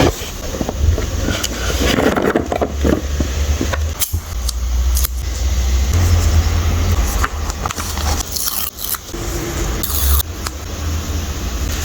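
Hands handling plastic photocard packaging: crinkling, scraping and short clicks of plastic sleeves and wrapping, over a steady low rumble.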